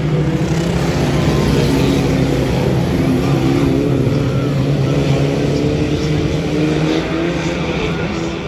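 Several Reliant Robin three-wheeler banger cars racing round the oval, their engines revving together, with pitches that rise and fall as the cars go round.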